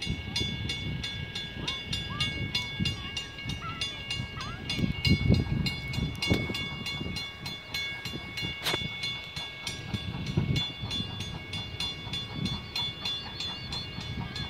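Railroad crossing bell ringing steadily at about three strokes a second. Beneath it, a low, uneven rumble from the approaching steam locomotive, Strasburg Rail Road no. 90, a 2-10-0 Decapod.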